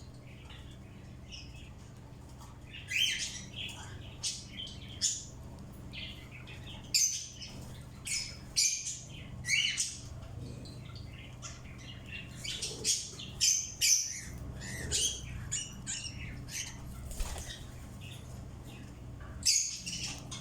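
Birds giving short, high calls in irregular clusters, several in quick succession, with quieter gaps between, over a steady low hum.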